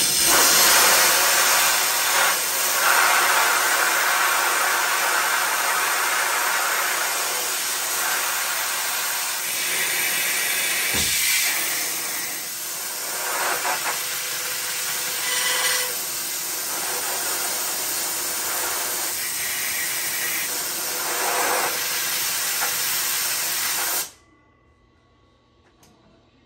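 Compressed air blowing from an air line in a loud, steady hiss, used to spin up the rotating aluminium disc. It cuts off suddenly near the end.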